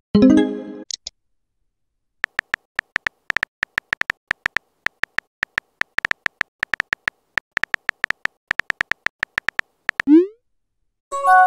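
Phone keyboard typing clicks: many quick, evenly pitched ticks as a text message is typed, running from about two seconds in to near the ten-second mark. A short message-arrival notification sound comes at the start, and the typing ends in a rising swoosh as the message is sent, followed near the end by another chime of several steady tones.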